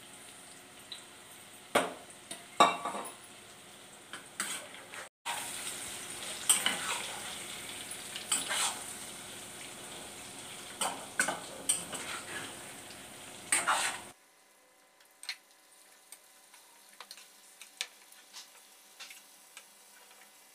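Stuffed bitter gourds and masala sizzling in hot oil in a frying pan while a steel spatula scrapes, stirs and taps against the pan, with a dozen or so sharp scrapes and knocks over the sizzle; the masala is being fried together with the gourds. After about 14 seconds the sizzle drops to a faint hiss with a few light ticks.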